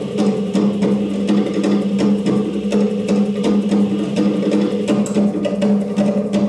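Belly dance fusion music: quick, even percussion hits over a steady low drone.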